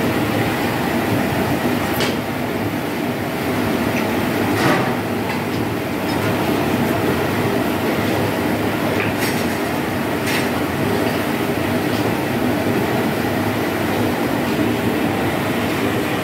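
Cast-iron melting furnace (cupola) running, a steady rumbling rush, while molten iron pours from its tap spout in a shower of sparks. A few sharp crackles stand out, about two seconds in, near five seconds and around nine to ten seconds.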